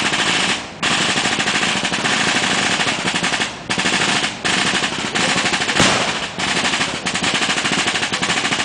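Sustained rapid machine-gun fire, broken by brief pauses, with a single sharper bang about six seconds in.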